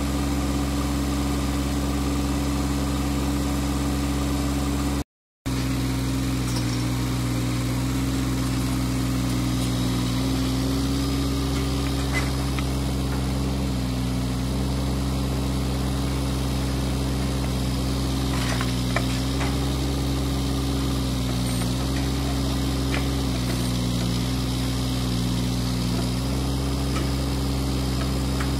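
Diesel engine of a heavy construction machine running steadily near idle, its note dipping slightly now and then. The sound cuts out completely for a moment about five seconds in.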